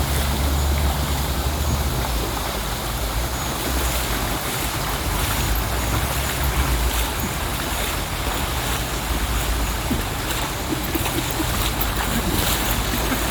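Steady rush of flowing river water, with a low, gusty rumble of wind on the microphone.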